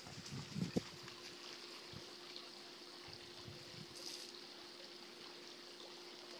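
Faint steady hiss of water spraying from a garden hose nozzle, with a couple of soft thumps about half a second in.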